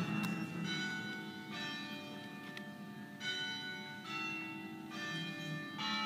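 Church bells ringing: a series of bells of different pitch struck one after another, about one strike every 0.8 s, each left to ring on under the next.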